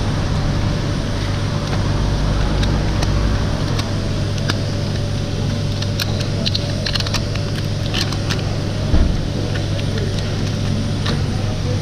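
A steady low motor hum, like a vehicle engine idling close by, under small clicks and rustles of tyre plug kit tools and plug strips being handled, with one soft thump about nine seconds in.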